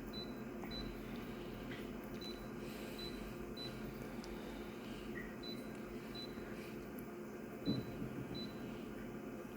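Photocopier running with a steady hum, with faint short high pips in small groups about half a second apart and a single knock near the end.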